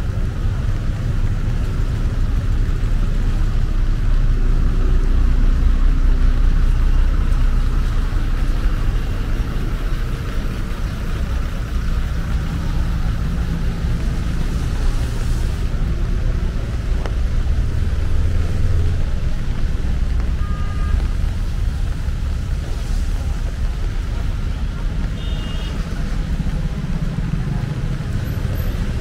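Street ambience made up of a steady low rumble of road traffic, with a few faint short tones about two-thirds of the way through.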